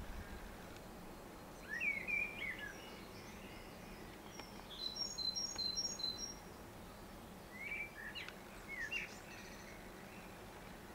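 Small songbirds singing in the background: a short phrase of quick gliding notes about two seconds in and again around eight to nine seconds, and a run of high, evenly spaced notes around five to six seconds in, over a steady hiss.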